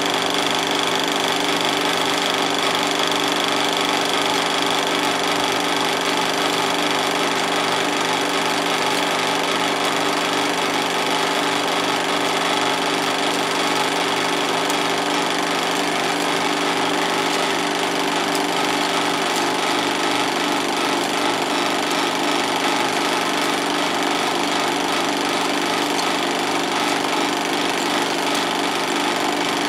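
16mm film projector running steadily: the fast, even clatter of its film-advance mechanism over the steady hum of its motor.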